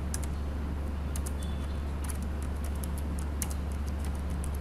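Computer keyboard typing: a run of irregular key clicks over a steady low hum.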